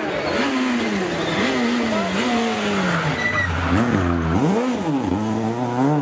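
Abarth Grande Punto rally car's engine at high revs as it comes toward the bend. It drops its revs with several sharp rises and falls in pitch about four to five seconds in, throttle blips on downshifts while braking, then climbs in revs as it accelerates out.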